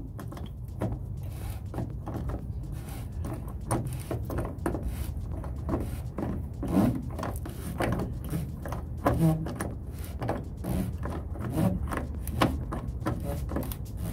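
Pipe wrench working the DEF filter housing cap on a Volvo VNL semi truck's DEF pump: irregular clicks and knocks of metal on the housing, over a steady low rumble.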